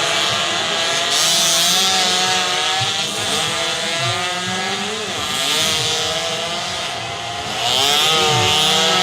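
Several racing motorcycle engines revving together, their overlapping pitches rising and falling. The sound eases off around seven seconds in and grows loud again near the end.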